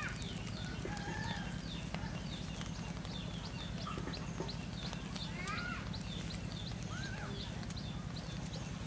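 Birds chirping: many short, quick high chirps that drop in pitch, with a few longer arching calls about five to seven seconds in, over a steady low hum. A few faint clicks as a stick prods the packet in the embers.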